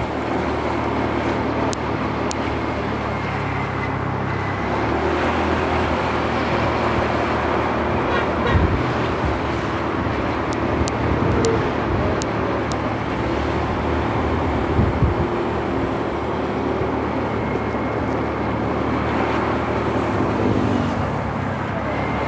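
Steady road traffic: a continuous rush of passing vehicles and running engines.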